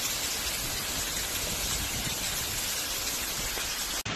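Steady, dense rush of muddy floodwater cascading down a rock face after heavy rain. It cuts off abruptly near the end.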